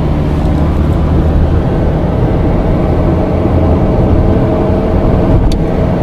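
Car engine running steadily with road rumble from the tyres, heard from inside the moving car's cabin. A brief sharp tick sounds near the end.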